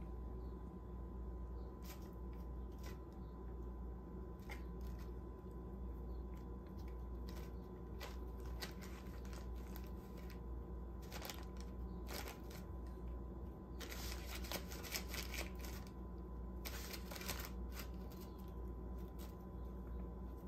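Loose plastic wrap crinkling, with scattered light clicks and taps, as a cat paws at a bottle cap in a plastic-wrapped tray of canned cat food. Denser bursts of crinkling come about two-thirds of the way through, over a steady low hum.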